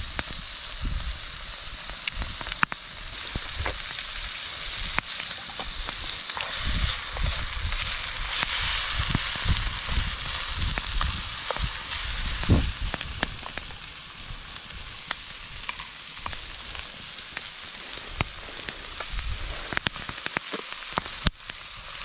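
Bacon, onion and carrot sizzling in a frying pan over a wood campfire, a steady hiss broken by many sharp pops, with a knife stirring and scraping the pan.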